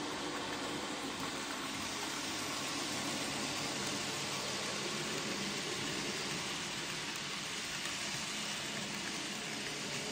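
Model railway train running along the layout track: a steady whirring hiss of the locomotive's motor and rolling wheels.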